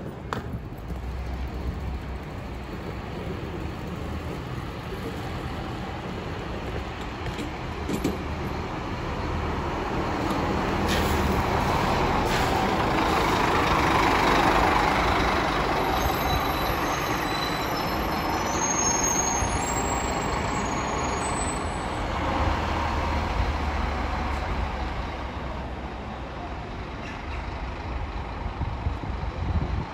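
A city bus passes close by, its engine and tyres building to a peak about halfway through and then fading. Beneath it, other buses run with a low steady hum.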